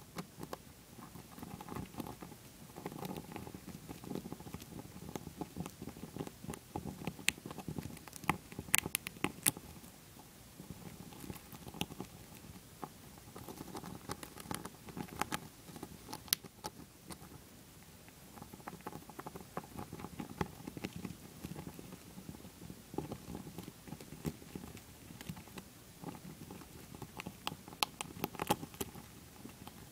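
Dwarf hamster gnawing a shelled peanut close to the microphone: quick, irregular crunching clicks that come in clusters, over a low rustle.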